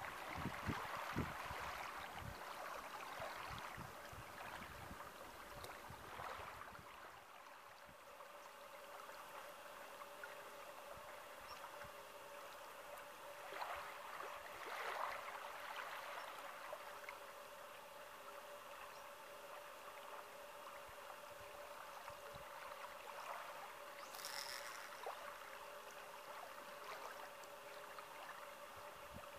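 Small waves lapping and gurgling against a sandy reservoir shoreline, with a few low thumps of wind on the microphone during the first few seconds.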